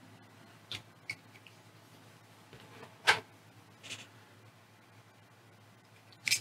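A few light taps and clicks of small parts and wire being handled on a workbench, the loudest about three seconds in and another near the end, over a faint steady low hum.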